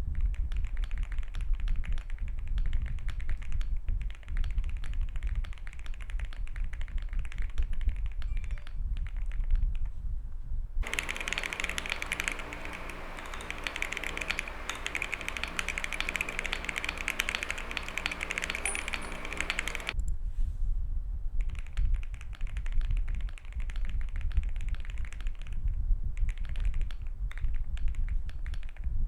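Continuous fast typing on a Monsgeek M1W mechanical keyboard with lubed Akko V3 Cream Yellow Pro linear switches and a tempest-modded PCB, giving a deep, thocky keystroke sound. For about nine seconds in the middle the typing sounds brighter, over a faint steady hum.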